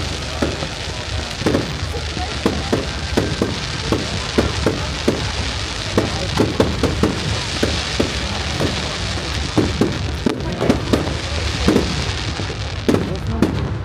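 Fireworks display: aerial shells and crackling effects bursting in a rapid, irregular string of bangs and pops, several a second, over a continuous crackling hiss.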